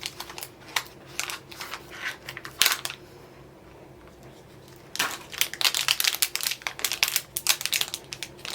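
Packaging of a small mystery pin box being handled and opened: scattered taps and rustles, a quieter pause of about two seconds, then a dense run of crinkling and rustling from about five seconds in.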